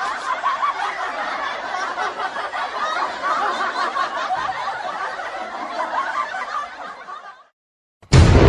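Laughter, going on without a break for about seven seconds, then fading out and stopping. A loud burst of music starts just before the end.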